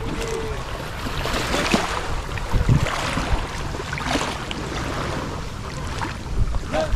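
River waves lapping and splashing in irregular surges against the bank, over a steady low rumble of strong wind on the microphone.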